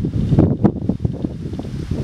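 Wind buffeting the microphone: a loud, gusty low rumble, with a couple of sharp cracks about half a second in.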